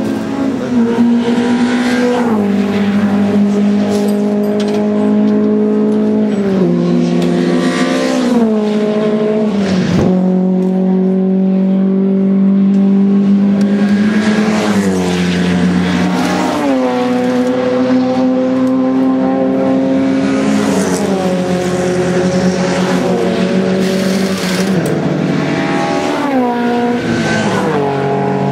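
Race car engines on the circuit accelerating hard through the gears, the pitch climbing and then dropping in steps at each upshift, over and over.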